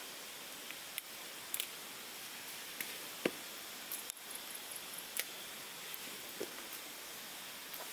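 Scattered small clicks, taps and rustles of high-top boots being unfastened and pulled off by hand, over a steady faint hiss.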